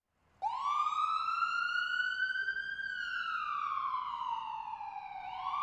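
A wailing siren: one tone that starts abruptly, rises slowly for about two seconds, falls for about two and a half, then begins rising again near the end.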